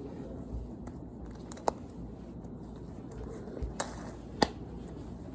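A large fidget spinner being handled: three sharp clicks and low rustling, with no steady spinning whir.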